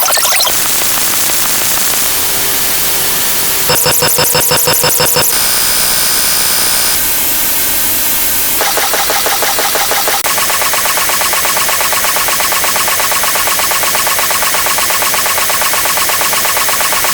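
A run of loud, harsh, distorted sound effects that switch every second or two. Several have a fast buzzing pulse. About ten seconds in, one steady, fast-pulsing buzz takes over and holds.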